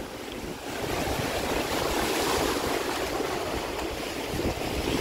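Steady rush of wind and sea waves, with wind buffeting the microphone in low rumbling gusts.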